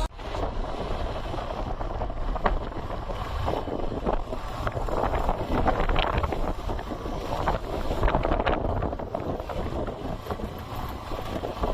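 Wind buffeting the microphone as a steady rushing noise, with scattered faint knocks.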